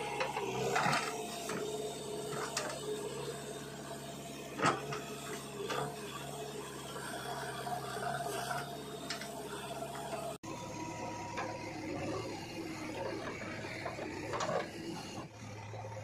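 JCB 3DX backhoe loader's diesel engine running steadily under hydraulic work, with scattered knocks from the bucket and falling soil.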